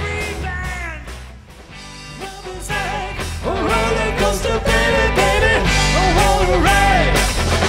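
Rock band playing live with a lead vocal. The band drops back for a moment about a second in, then the sung melody comes in strongly about three seconds in.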